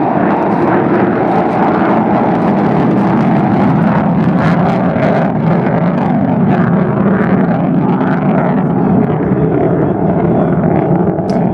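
Boeing B-1B Lancer's four General Electric F101 afterburning turbofans running in afterburner as the bomber climbs out after takeoff: a loud, steady jet rumble.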